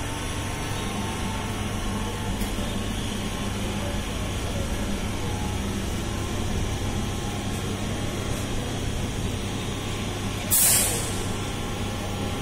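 Electric MEMU train with a steady low electrical hum. About ten and a half seconds in, a short loud hiss.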